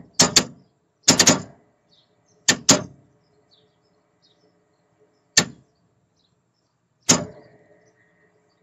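A series of about six sharp knocks or clanks at irregular intervals, several leaving a brief faint ringing after them, with near quiet in between.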